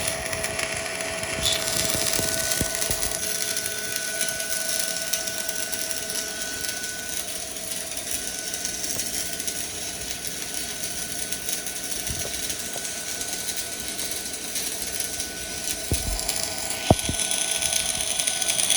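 MAXARC-250 welder's electric arc running a weld bead: a steady, continuous crackling sizzle.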